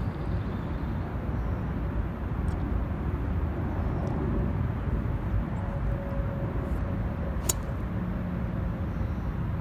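A steady low outdoor rumble, then near the end a single sharp click as a golf driver strikes the ball off the tee.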